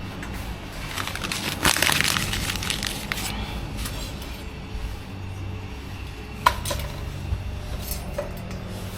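Gear being handled: a crinkling rustle about two seconds in, then scattered sharp clicks and clinks like cooking things being set out, with one louder click past the middle.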